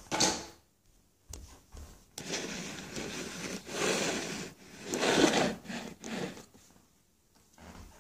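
Rustling and rubbing close to the microphone, coming in swells for a few seconds after a bump at the start and a couple of short clicks, then dying away near the end.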